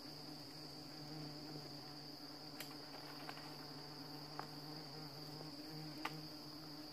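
Yellow-legged hornets (ong chân vàng) buzzing around their disturbed nest in a steady low drone, over a steady high trill of forest insects. A few sharp twig snaps come through as the branches are handled.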